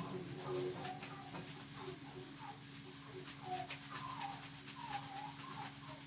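Steel wool scrubbing metal parts clean: irregular scratchy rubbing strokes.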